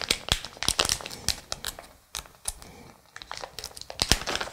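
Plastic package of soft-plastic shad lures being crinkled and torn open by hand: irregular crackling, busiest in the first two seconds, thinning out in the middle and picking up again near the end.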